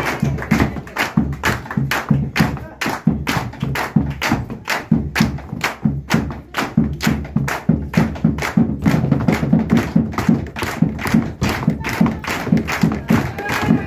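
Argentine zapateo footwork: feet stamping and tapping on a wooden dance floor in a fast, even rhythm of about four strikes a second, with a bombo drum beating along.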